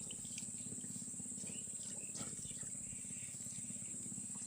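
Insects chirring steadily in a high-pitched whine, over a low, fast-pulsing drone and a few faint clicks.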